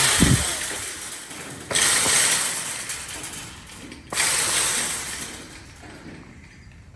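Metal trap and trailer panels rattling and clanging as trapped wild hogs crash into them, in three loud bursts about two seconds apart, each dying away over a second or two.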